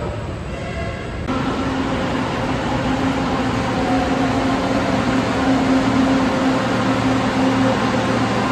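Metro train pulling into a station platform: a steady motor hum over the rumble of its wheels, growing louder as it comes alongside. Before it, for the first second or so, there is quieter station noise.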